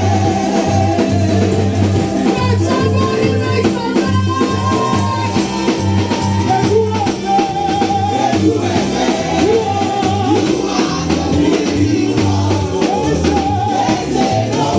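A woman singing gospel into a microphone over live band music, with a keyboard and a steady drum beat.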